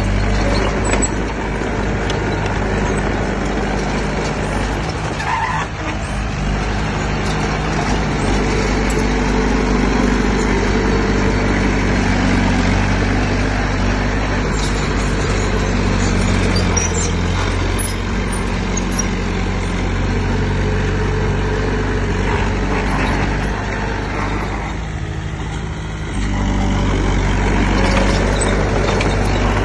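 Heavy diesel engine of earthmoving machinery running steadily under load, its note easing off a few seconds before the end and then picking up again.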